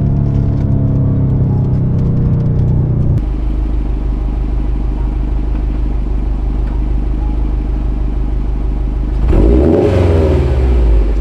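Subaru WRX STI's turbocharged 2.5-litre flat-four through an AWE Touring catback exhaust: for the first three seconds the engine note falls slowly in pitch, then it idles steadily, with a single throttle blip about nine seconds in that rises and drops back.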